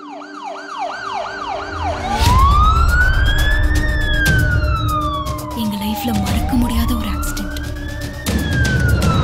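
Ambulance siren, first a fast repeating yelp that switches about two seconds in to a slow wail rising and falling twice. Under it run a low rumble of the moving vehicle and many sharp clicks.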